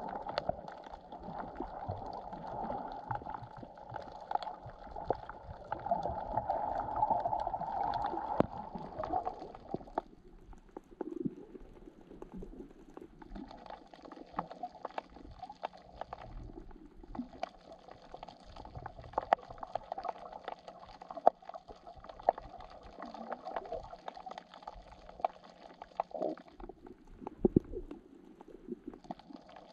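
Muffled underwater sound picked up by a snorkeler's camera: water gurgling, with many sharp clicks and crackles scattered throughout. The gurgling is fuller for the first ten seconds or so, then drops back.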